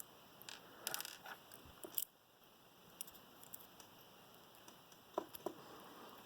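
Faint, scattered small clicks and scrapes of a small screwdriver working at a Paclock 90A-PRO padlock while it is being taken apart, with a cluster about a second in, a sharper click at about two seconds and a couple more a little after five seconds.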